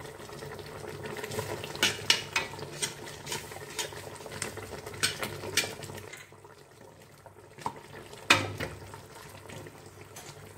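Metal spoon stirring and scraping through a meat sauce in a stainless steel pot, clinking against the pot's sides in a run of sharp ticks. Then a quieter pause and one loud clink a little after eight seconds.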